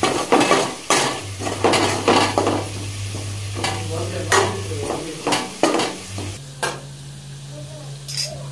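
Metal spoon stirring and scraping chopped vegetables frying in oil in a large aluminium pot, a sharp scrape with each stroke over steady sizzling. The strokes come about one or two a second, then thin out to a couple of single scrapes after about six seconds.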